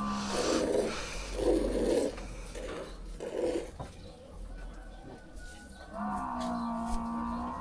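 Water buffalo lowing: a call ends just after the start, and a second long, steady call begins about six seconds in. In the first few seconds, rhythmic squirts of milk hit the pail, about one a second, as the buffalo is milked by hand.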